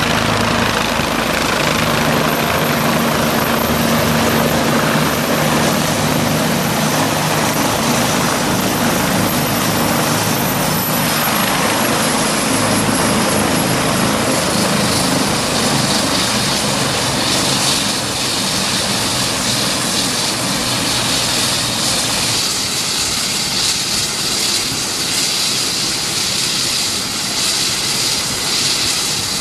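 Bell 429 helicopter's four-bladed main rotor and twin turbine engines running close by, loud and steady. A low rotor beat fades after about seven seconds, and a high turbine whine grows stronger past the middle as the helicopter sits on the pad with rotors still turning.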